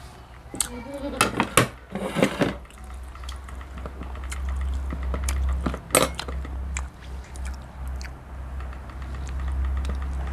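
Spoons and dishes clinking now and then during a family meal, with liquid sounds from the soup. The clicks come in a cluster over the first two seconds or so, with one sharp knock about six seconds in, over a steady low rumble.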